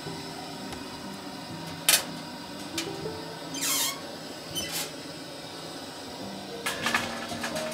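Metal handling at a Coleman folding camp oven: a sharp click, then the oven's steel door swinging open with a short scrape, and a metal muffin tin set onto the oven's wire rack with light clinks near the end.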